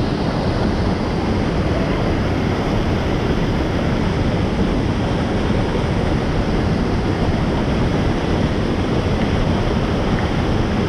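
Whitewater pouring down a steep creek waterfall close by: a steady, loud rush of water that does not change.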